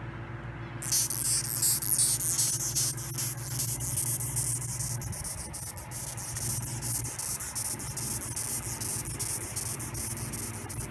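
Longhorn beetle stridulating: a high, scratchy chirping made of rapid fine strokes that starts suddenly about a second in and goes on steadily, loudest in its first few seconds. A low steady hum runs beneath it.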